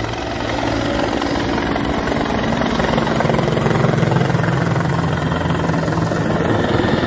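Helicopter flying low overhead, its main rotor chopping rapidly over a steady engine hum, growing louder about halfway through as it passes close.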